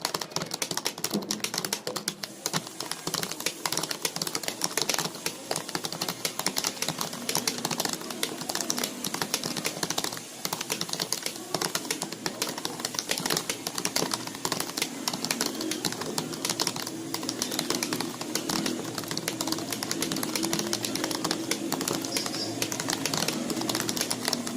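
Fast, continuous typing on a computer keyboard: rapid keystroke clicks with only brief pauses.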